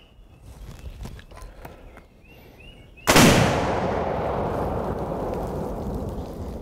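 One loud explosive blast as a charge packed in a tree trunk goes off, followed by a long echoing rumble that slowly fades.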